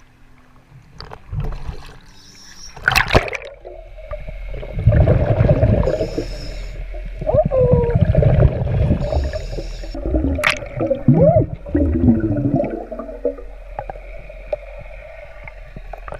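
A splash about three seconds in, then scuba breathing underwater: the regulator hissing on each inhale and rumbling bursts of exhaled bubbles, over a steady underwater hum with some wavering tones.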